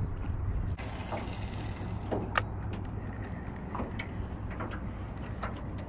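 Steady low rumble of open-water ambience with light water lapping against the boat, and one sharp click about two and a half seconds in.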